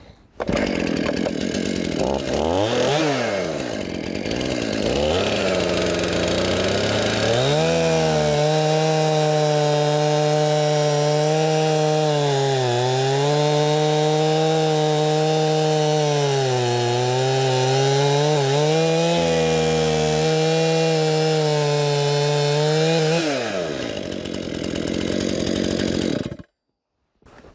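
Stihl MS 271 Farm Boss 50cc two-stroke chainsaw coming on suddenly and revving up and down a few times. It is then held at high revs for about fifteen seconds while cutting through a log, the engine note dipping a couple of times under load. It drops back to idle and cuts off suddenly near the end.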